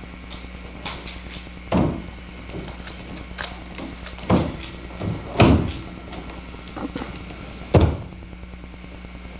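Feet stamping on a wooden floor during a Sunmudo martial-arts form: four loud thumps spread out at irregular intervals, with lighter knocks between.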